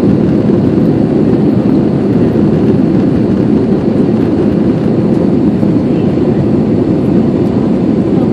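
Airplane noise during takeoff: a steady, loud low rumble of engines and rushing air that does not change.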